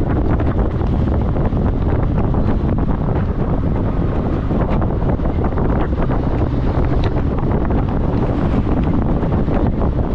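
Steady, loud wind noise buffeting the microphone while riding, a dense low rumble.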